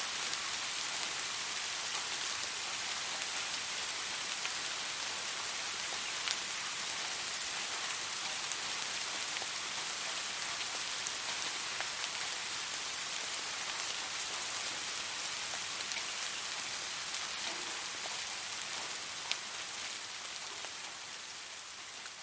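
Steady rain falling, with scattered sharper drop ticks, gradually fading out over the last few seconds.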